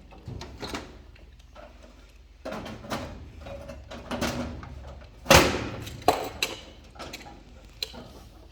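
Metal knocks and clunks from handling a furnace's sheet-metal access panel, with one sharp loud knock about five seconds in.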